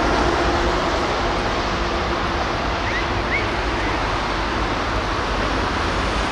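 Steady outdoor background noise, a low rumble under a hiss. A low hum fades out in the first second or two, and a few short rising chirps come about three seconds in.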